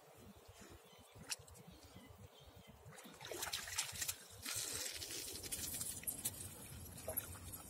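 Shallow lake water splashing and trickling around a husky's legs as it wades among the shoreline rocks, with faint scattered ticks; the water noise grows louder for a couple of seconds around the middle.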